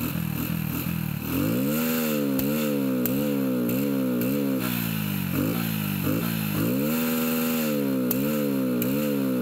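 Hero Splendor's single-cylinder four-stroke engine idling, then from about a second in revved in quick repeated throttle blips, the pitch rising and dropping about twice a second, held high briefly twice.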